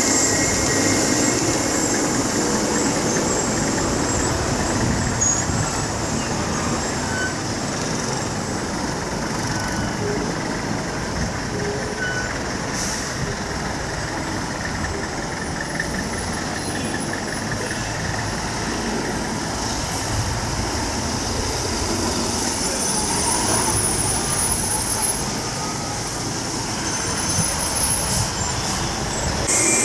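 A steady rumbling noise, heaviest in the low end, holding at an even level throughout.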